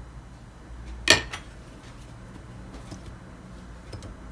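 One sharp knock of something hard against dishware about a second in, then a few faint handling ticks near the end, against a low steady room hum.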